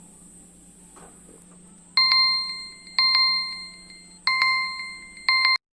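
Electronic beeps: about six loud chime-like tones of one pitch, some in quick pairs, each dying away, ending in an abrupt cut.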